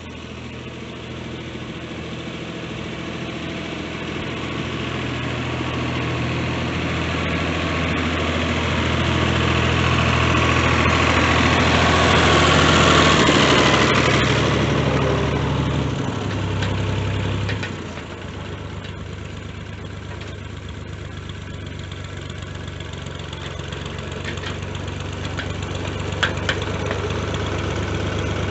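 Tractor engine running steadily on a test run of a bush hog rotary mower fitted with new blades. It grows louder to a peak about halfway through, then drops suddenly about two-thirds of the way in and carries on at a lower, even level.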